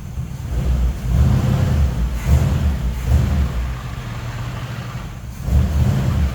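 1965 Chevy C10 pickup's engine running, revving up in surges about a second in and again near the end.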